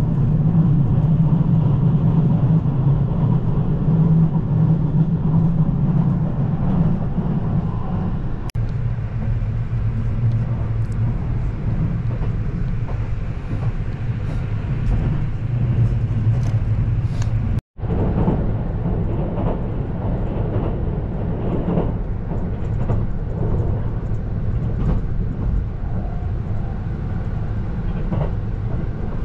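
JR Haruka airport express train running, heard from inside the carriage: a steady low rumble of wheels on track. The sound cuts out for a split second about two-thirds of the way through, then goes on as before.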